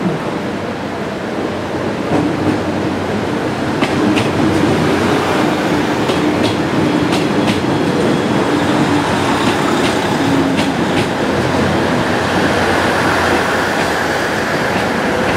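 KiHa 110 series diesel railcars running past along the platform, their wheels clicking sharply over rail joints several times through the middle of the passage. Beneath the clicks is the train's steady running noise.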